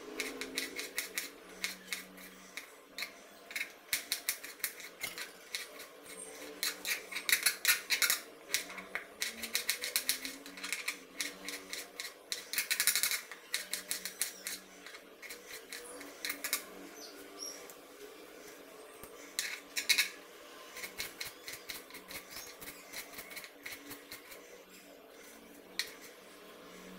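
Kitchen knife chopping tomatoes and fresh coriander on a plastic chopping board: runs of rapid, sharp knocks of the blade on the board, with short pauses between runs.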